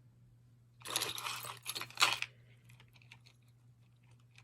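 Jewelry and its packaging being handled: a rustling, crinkling burst lasting about a second and a half, with a sharp click near its end.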